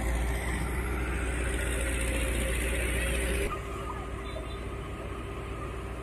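Diesel engine of a Dynapac single-drum road roller running steadily with a deep hum. About three and a half seconds in, the sound cuts abruptly to a quieter, steady heavy diesel engine beside a tipper truck dumping soil.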